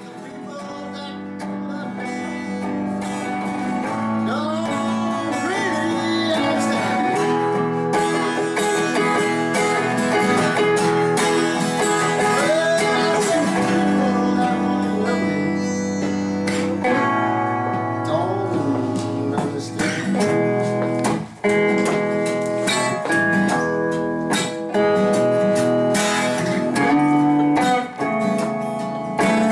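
Acoustic guitar and electric guitar playing together, an instrumental piece that fades in over the first few seconds.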